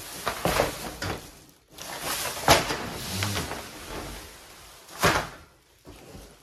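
Flat-pack desk parts and their cardboard packaging being handled: scraping and rustling broken by knocks and thuds, the two sharpest about two and a half and five seconds in.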